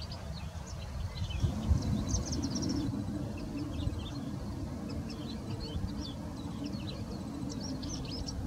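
Male red-backed shrike singing a warbling run of short, high twittering notes over a steady low background rumble.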